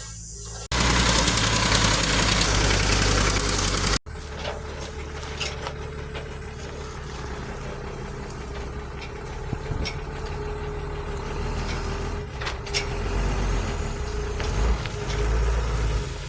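Heavy diesel engine of a truck or road roller running steadily with a low rumble and scattered clicks. Before it, about a second in, comes a few seconds of loud, even rushing noise that cuts off abruptly.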